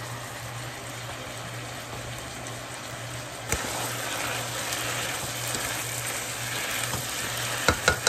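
Diced chicken sizzling in its own juices in a nonstick frying pan, over a steady low hum. A knock comes about three and a half seconds in, after which a spatula stirs the chicken, with a few sharp taps against the pan near the end.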